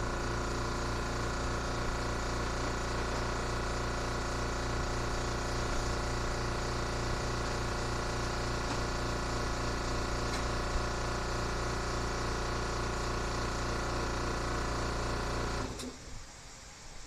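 Electric air compressor running steadily with a constant pitch, then shutting off abruptly near the end.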